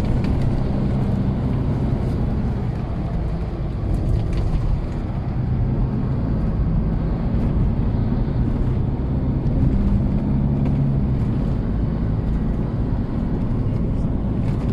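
Road noise inside a moving vehicle's cabin: a steady low drone of engine and tyres at highway speed.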